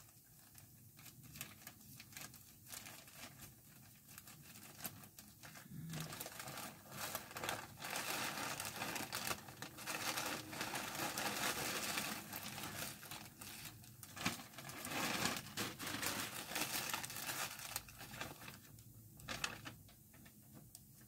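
Scissors snipping open a rose-printed mailer, then the packaging crinkling and rustling as the contents are pulled out and unwrapped. The faint clicks in the first few seconds build into dense crinkling from about six seconds in, which dies down near the end.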